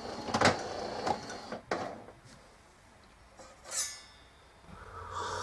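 Melitta Caffeo CI automatic coffee machine running as it finishes dispensing coffee, now working normally after a repair, with two sharp knocks in the first two seconds. It stops about two seconds in, followed by a few brief faint sounds.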